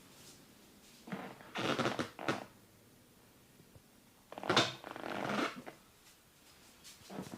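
Hands rubbing over skin during a massage: two rubbing strokes of about a second each, and a short one near the end.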